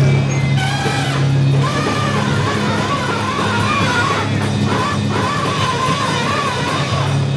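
Rock music with guitar, a wavering melody line running over a steady low drone.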